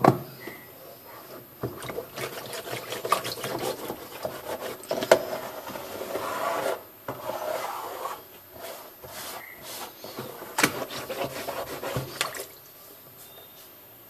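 Cloth rubbing and scrubbing around the inside of a washing machine's plastic spin-dryer tub, with a few sharp knocks along the way; the rubbing stops near the end.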